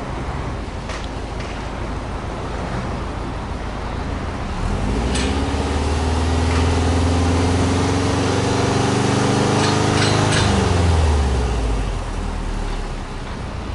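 Subaru Impreza WRX STI Version 4's turbocharged 2.0-litre flat-four idling at the tailpipe, then revved with the car standing. Engine speed climbs about four seconds in and is held up for several seconds, louder, then drops back to idle near the end.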